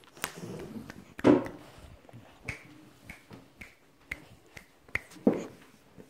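Cupped hands popped together to mimic a water drop: an irregular string of short pops, some with a brief hollow plink, the loudest about a second in and near the end.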